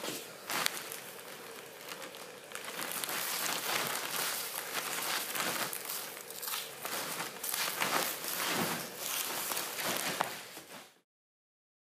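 Rustling and crackling of a clear plastic bag and loose puffed corn snacks being scooped up by hand off a concrete floor, full of small crunches and clicks. It cuts off abruptly near the end.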